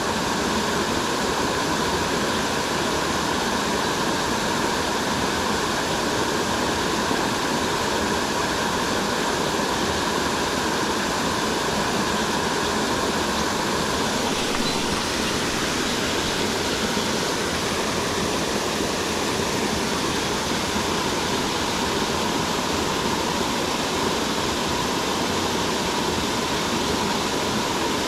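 Buderim Falls waterfall: water pouring over the falls in a steady, unbroken rush that does not change in loudness.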